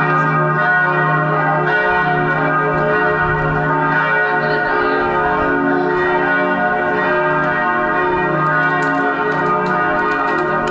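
Lutheran church bells ringing continuously, several bells' strokes overlapping into a dense, sustained peal.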